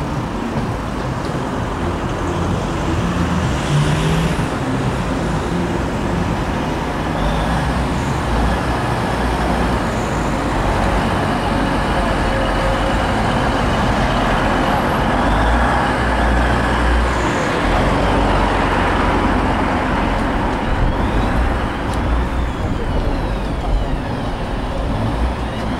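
Class 185 diesel multiple unit running slowly past close by: a steady diesel engine drone mixed with the rumble of wheels on the rails. Faint high squeals rise and fall near the end.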